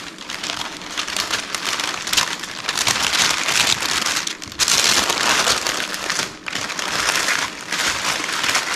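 Parchment paper crinkling and rustling as it is folded over and scrunched closed into a packet by hand, a steady rustle with two short pauses about halfway through.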